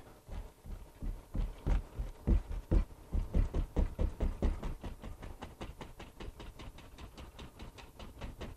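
A paintbrush loaded with oil paint dabbing against a painting canvas: a run of soft taps, about three a second, louder in the first half and growing fainter after about five seconds.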